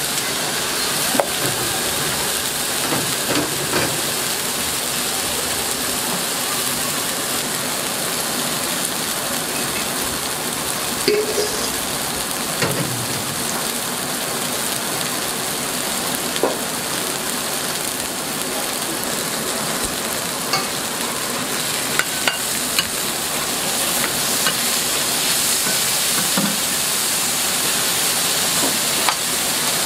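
Beef burger patties and an egg in a ring mould sizzling on a hot flat-top griddle: a steady frying hiss with a few short clicks scattered through it.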